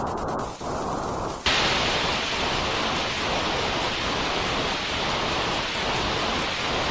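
Steady white-noise hiss played to soothe a baby. It starts muffled, with only the low part of the hiss, then switches abruptly about a second and a half in to a brighter, louder full hiss.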